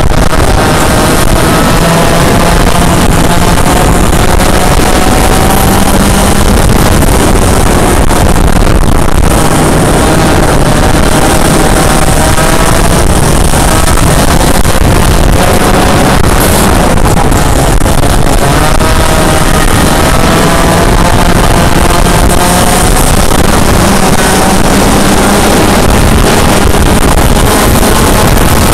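Yamaha KT100 100cc two-stroke kart engine running hard and loud. Its pitch climbs over several seconds as it accelerates, then drops back as it lifts for the corners, several times over.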